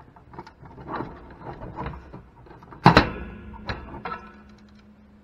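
Hands working the wiring of an opened Commodore 128 case: small clicks and rustles as the LED and keyboard connectors are pulled off the motherboard, and a loud knock about three seconds in that rings briefly, with a smaller click just after.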